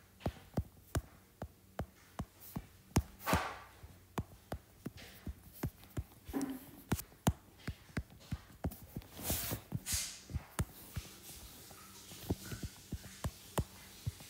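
Stylus tip tapping and pattering on a tablet's glass screen as quick sketch strokes are laid down, in a string of light clicks at about two to three a second, with a couple of brief swishes.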